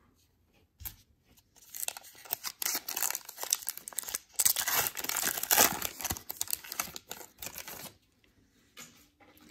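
Wrapper of a Topps Gypsy Queen baseball card pack being torn open and crinkled by hand: a crackling rip that starts about two seconds in, lasts some six seconds and is loudest around the middle.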